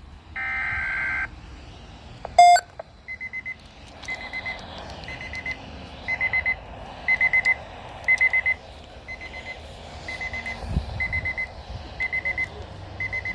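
A short buzzy digital data burst just after the start, a loud click about two and a half seconds in, then high electronic alert beeping about once a second, each beep a quick run of pulses. This is a weather alert radio receiver sounding its alarm as a new Environment Canada alert comes in.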